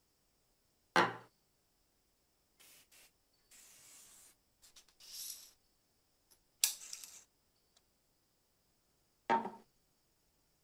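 Items set down one by one on a wooden tabletop: three sharp knocks, about a second in, just past the middle and near the end, with brief rustling and sliding between them.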